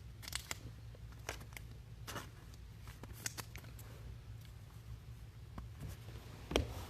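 Trading cards being handled and sorted: light rustles and short clicks of card stock and packaging, scattered every second or so over a low steady hum.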